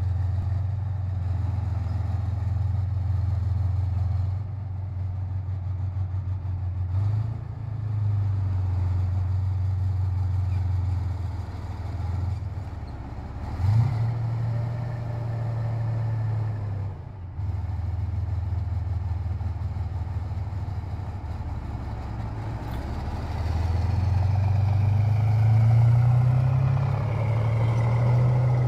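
Tank engine running, a steady low drone that rises and falls in pitch several times as it is revved, climbing higher in the last few seconds.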